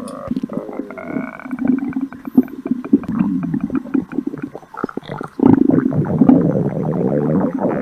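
Stomach growling: a continuous run of gurgling rumbles that waver up and down in pitch, getting louder about five and a half seconds in.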